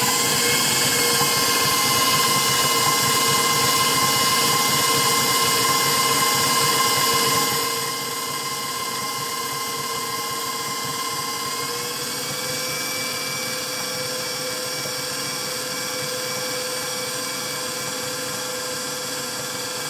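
KitchenAid stand mixer's motor running steadily at speed 4 with a constant whine, the whisk beating egg whites, water and bread mix into a batter. It gets somewhat quieter about eight seconds in and rises slightly in pitch a few seconds later.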